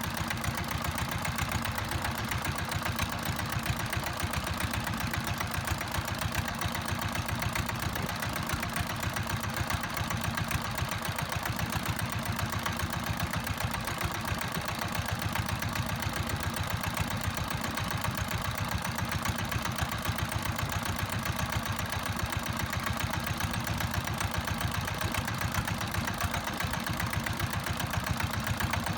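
Boat engine running steadily at a constant low speed, a fast, even chugging that does not change.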